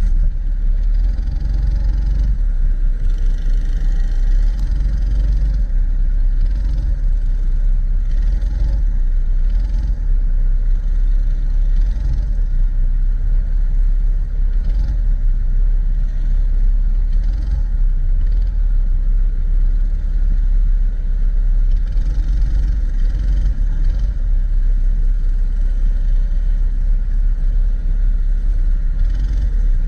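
80cc racing kart engine running at speed in a race, steady with small rises and dips and a heavy low rumble.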